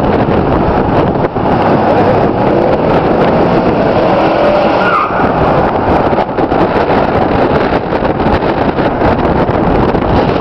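Muscle cars driving in convoy, engines and tyre noise running loud and steady, with a short rising whine about five seconds in.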